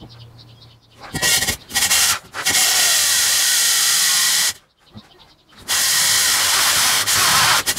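Diamond core bit on a drill grinding through a masonry wall: a couple of brief starts, then two long stretches of steady cutting with a short stop between.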